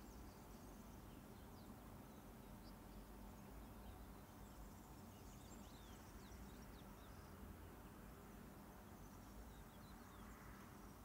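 Near silence: quiet room tone with a low hum, and faint, scattered high-pitched chirps throughout.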